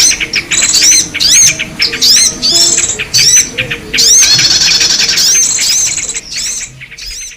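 Bird-lure recording of small songbird calls: rapid, repeated high arching chirps mixed with longer buzzy trills, played to attract yellow-vented bulbuls and other small birds. It fades out near the end.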